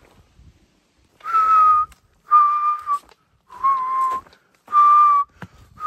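A man whistling a slow tune with his lips, mimicking the wendigo's whistle from folklore: breathy held notes about a second apart, the third lower than the rest, the fifth starting near the end.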